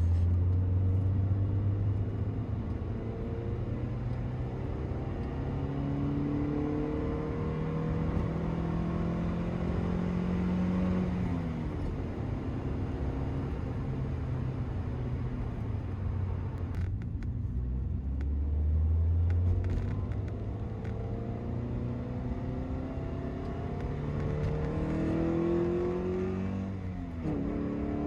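Toyota MR-S 1ZZ four-cylinder engine with an aftermarket cold air intake, pulling under acceleration. Its pitch climbs steadily for several seconds and then drops away, twice, as the car changes gear.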